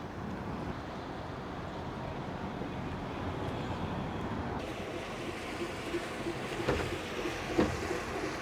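Steady rushing noise of wind on the microphone, with a few short knocks near the end.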